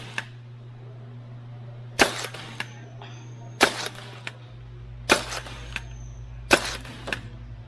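Spring-powered foam dart blaster firing four shots about a second and a half apart, each sharp crack followed by a softer click as the blaster is primed again, over a steady low hum.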